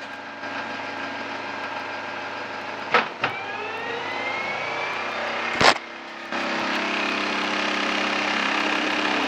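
Metal lathe spinning a Lucas motorcycle dynamo, with the speed changed back up to about 2000 RPM. A clunk from the lathe's speed levers comes about three seconds in, followed by a whine rising in pitch as the spindle picks up speed. Another sharp clunk comes near six seconds, after which the steady running note is louder.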